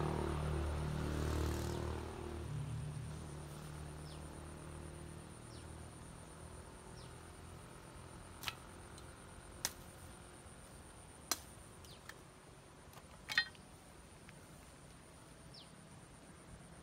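Four sharp cracks a second or two apart, the last with a short crackle, from branches being snapped and gathered. A low steady hum fades out in the first couple of seconds, and faint short chirps come now and then.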